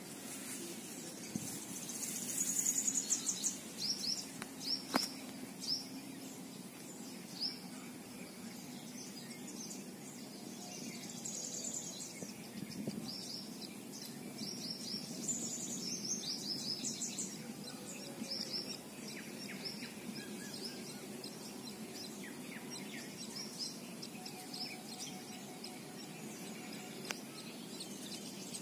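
Small birds chirping, with many short, high chirps coming in clusters over a steady outdoor background hum. There is a single sharp click about five seconds in.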